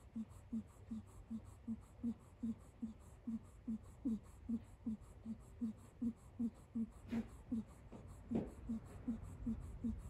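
Sleeping kitten snoring: short notes, each falling in pitch, repeating steadily about three times a second, like a tiny donkey braying.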